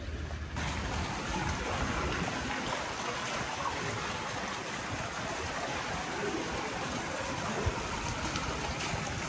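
Water running and trickling steadily in a shallow water feature, starting abruptly about half a second in.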